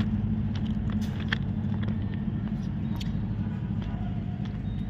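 An engine running steadily, a low even hum, with a few faint clicks over it.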